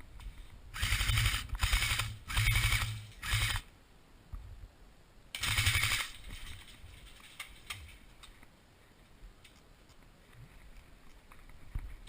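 Airsoft electric gun firing in short full-auto bursts, its gearbox chattering rapidly: four bursts in quick succession, then one more a couple of seconds later.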